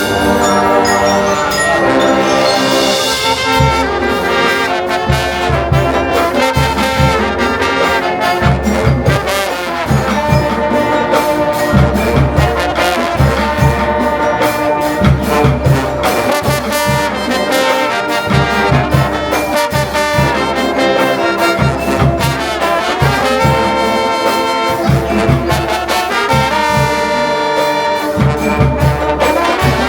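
Drum and bugle corps playing a pop medley: the brass horn line carries the melody in sustained chords over a steady, driving beat from the marching drums.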